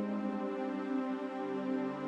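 Soft ambient background music with sustained chords; a lower note comes in about one and a half seconds in.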